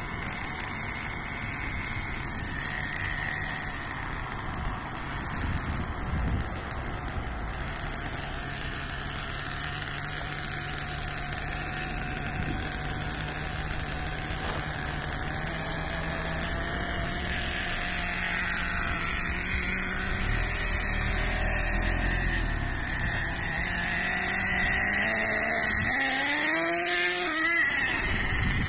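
LRP ZR.30 two-stroke nitro engine in an HPI Savage 4.6 RC monster truck, running as the truck drives, its pitch drifting up and down with the throttle. About two seconds before the end it revs up sharply in a rising sweep, the loudest moment.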